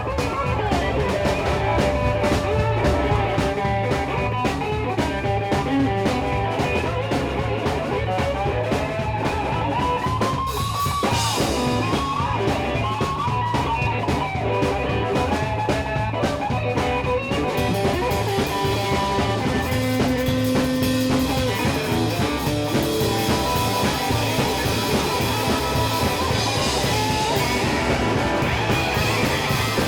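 Blues-rock band playing live: electric guitar played slide-style with a metal key, its notes gliding up and down, over bass and a steady drum beat.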